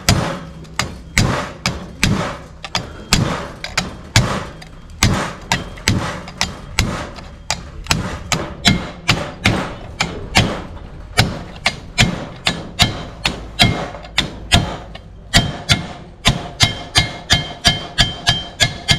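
Steady hammering on sheet metal backed by a small hand anvil, about two or three blows a second. Near the end the blows come faster and ring with a clear metallic tone.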